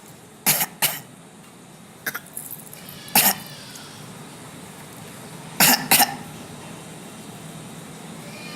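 Short coughs in pairs, about four bursts a couple of seconds apart, from a father coughing and a baby girl copying his cough.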